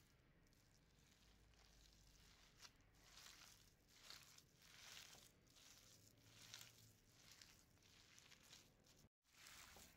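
Faint, soft squishing and rustling of bare hands kneading a sticky mixture of cooked rice and minced meat in a glass bowl, in repeated squeezes about once or twice a second. The sound cuts out briefly near the end.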